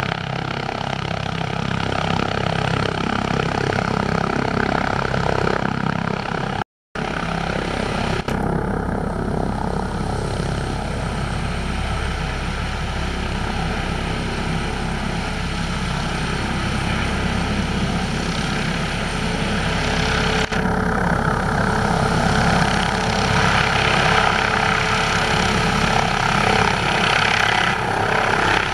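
Airbus ACH145 (BK117 D-3) helicopter with its twin turboshaft engines running and rotor turning, a steady turbine whine over the rotor noise. The sound drops out for a moment about seven seconds in, and grows louder over the last few seconds as the helicopter lifts into a hover.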